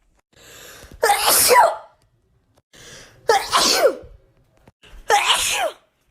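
Three wet sneezes in a row, about two seconds apart. Each is a short in-breath followed by a loud voiced 'achoo' burst.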